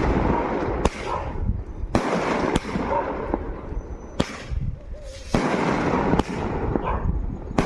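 Firecrackers going off: about seven sharp bangs at irregular intervals, roughly one a second, over a continuous crackling din.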